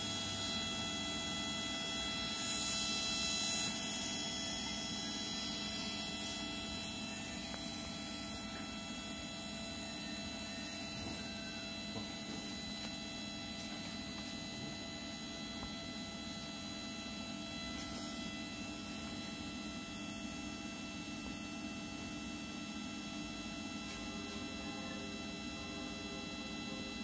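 Steady electric hum with several fixed tones from a Videojet 43S inkjet printer's ink system running while the used cleaning fluid is pumped out into a waste bucket. A brief hiss comes a few seconds in.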